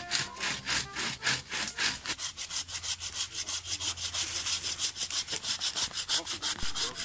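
Small hand saw cutting through a living sapling stem, in quick, even back-and-forth strokes, several a second.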